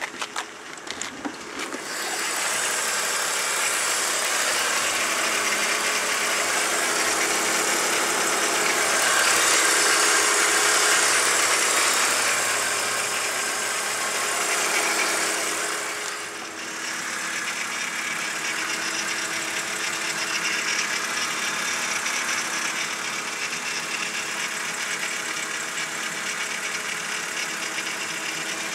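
BMW E46 car running steadily, with the rattling noise the owner is trying to trace. A few short clicks come first, and the engine sound sets in about two seconds in. It grows somewhat louder in the middle, drops briefly about two-thirds through, then runs steady.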